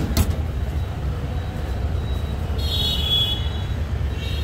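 Steady low rumble of street traffic, with two sharp knocks right at the start and a brief high-pitched tone about three seconds in.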